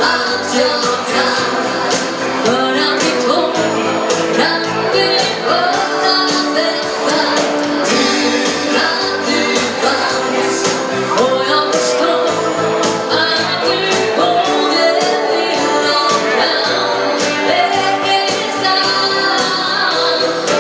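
Live dansband music: a woman singing lead over electric and acoustic guitars, keyboard and a drum kit keeping a steady beat.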